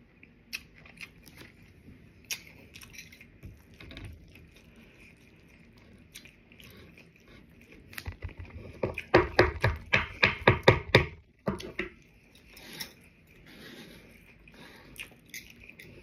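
Close-up eating sounds from crunchy taco shells: scattered small clicks and mouth smacks, then a loud run of quick crunches a little past the middle.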